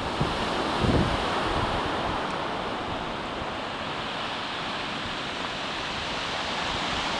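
Sea surf washing onto rocks and a small beach, a steady rushing hiss, with a short gust of wind on the microphone about a second in.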